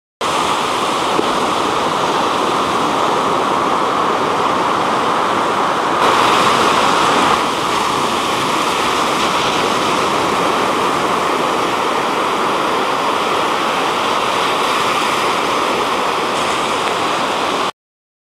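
Atlantic Ocean surf: waves breaking and washing up a sandy beach in a steady rush, a little louder for a second or so about six seconds in. It cuts off suddenly near the end.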